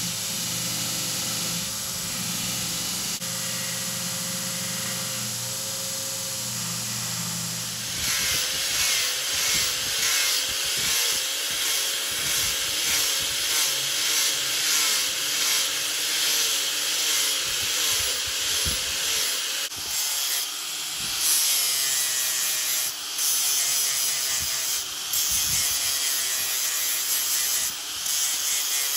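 Belt grinder running steadily with a low motor hum as a buffalo horn handle with a brass guard is held against the belt. About eight seconds in, this gives way to a disc grinder sanding and shaping the horn handle, a hissing grind that rises and falls as the disc is pressed and eased off.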